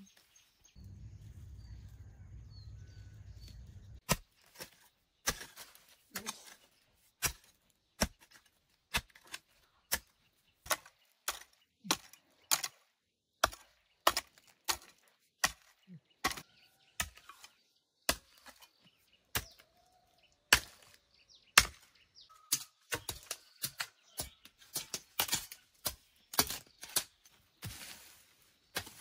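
Repeated sharp chopping blows at an irregular pace of about one or two a second, starting about four seconds in, after a few seconds of low rumble.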